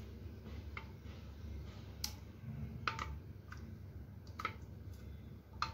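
A steel spoon stirring thin batter in a glass bowl, knocking against the glass in about half a dozen light, scattered clicks.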